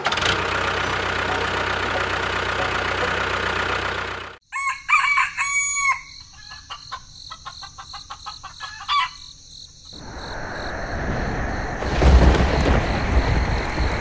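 A steady engine-like drone cuts off abruptly about four seconds in. A rooster crows and hens cluck over faint ticking and chirping. From about ten seconds, rain builds with a low rumble of thunder.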